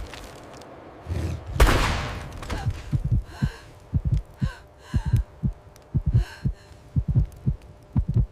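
Heartbeat sound effect: low thumps in pairs about once a second, after a loud rushing whoosh about a second in.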